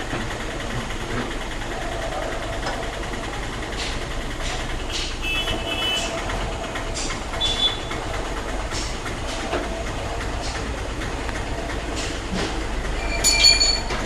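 HDPE pipe butt fusion welding machine running steadily, with scattered clicks and a few short, high squeaks.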